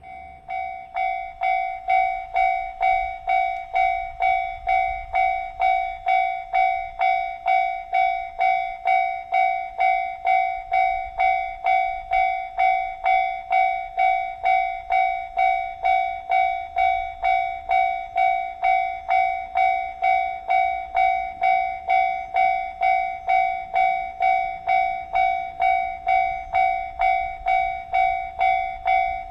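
Japanese railway level-crossing alarm starting up and ringing its "kan-kan" bell tone steadily, just under two strikes a second, warning that a train is approaching.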